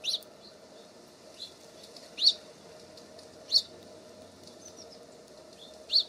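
Songbirds calling at a feeder: four sharp, high single call notes spaced a second or two apart, with a few fainter chips between them.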